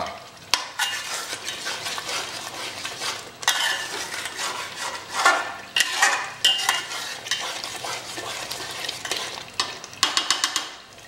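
Onion-tomato masala sizzling as it is roasted (bhuna) on a high gas flame, while a flat metal spatula stirs and scrapes it around a metal pot in repeated strokes. A quick run of clinks from the spatula against the pot comes near the end.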